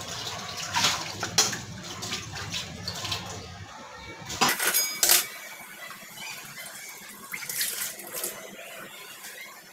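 Washing steel utensils at a steel kitchen sink: tap water running while a steel kadai and other steel pots are rinsed and scrubbed, with several sharp metal clinks and clatters and some squeaks.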